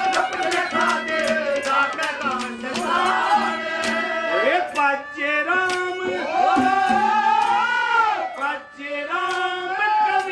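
A male singer performing a Haryanvi ragni live, his voice in long held and gliding phrases over steady instrumental accompaniment with a regular percussive beat.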